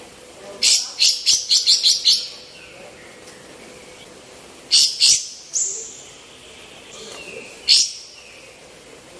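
Female kapas tembak songbird calling in loud, sharp, clipped notes: a quick run of about seven about half a second in, then a pair, another note, and a single call a couple of seconds later.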